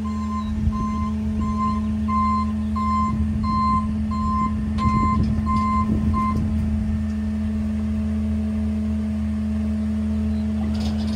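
Backup alarm on a Ford pickup-based mini garbage truck beeping about one and a half times a second as it reverses, stopping about six seconds in once it is up against the rear loader. A steady truck engine drone runs underneath, with a few light clicks near the end.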